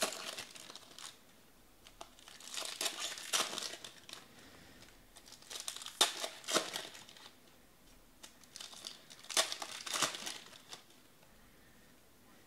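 Foil wrappers of 2019 Panini Elite Extra Edition trading-card packs crinkling and tearing as they are ripped open by hand, in four bursts of a second or two each.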